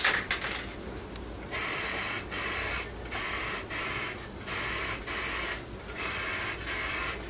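Aerosol can of Plasti Dip glossifier spraying in a series of short passes, each about a second of steady hiss with brief breaks between, starting about a second and a half in.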